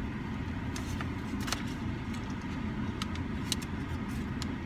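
Steady low rumble of a car cabin, the vehicle's engine and road noise, with a few light clicks scattered through it.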